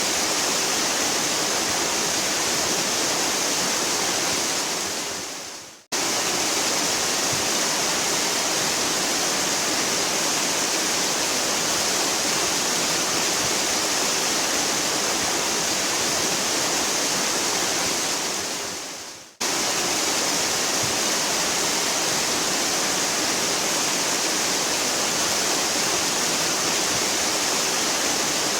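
Waterfall rushing in a steady, dense roar of falling water. Twice it fades away over about two seconds and then cuts back in suddenly at full strength, as at joins between recordings.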